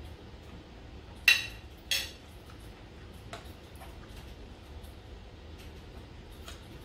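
Two sharp clinks with a short ring, under a second apart, as a metal spoon is set down on a glass plate. Later there are a few faint clicks of chopsticks against a metal bowl.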